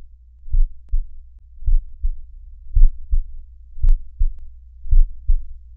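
Slow heartbeat sound: low double thumps, lub-dub, about one pair a second, with a faint tick now and then.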